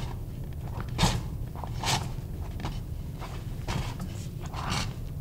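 Elk hide and its hide stringing rustling and scraping as the stringing is worked through the holes of a hand drum's hide: a run of short scrapes about two a second, the loudest about one and two seconds in.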